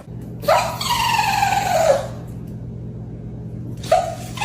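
A dog giving long, high whining howls that slide down in pitch, one in the first half and another starting near the end, with a brief yelp just before it. A steady low hum runs underneath.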